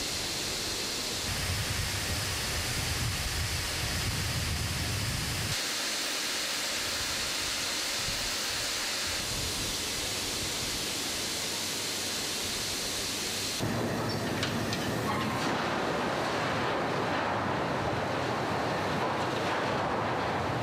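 Steady noise that shifts at each shot change. About two-thirds of the way in it gives way to the louder, denser rumble of a rotary car dumper turning a railway wagon over and tipping out its load.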